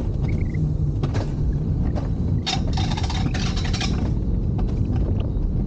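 Rail-guided bobsled ride car running down its steel-tube track: a steady low rumble of the wheels on the rails, with a louder rattling scrape for about a second and a half midway.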